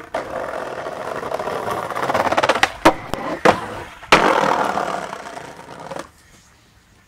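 Skateboard wheels rolling over paving, with several sharp clacks of the board as a trick is popped. A hard landing smack comes about four seconds in, then the wheels roll on loudly and die away about six seconds in.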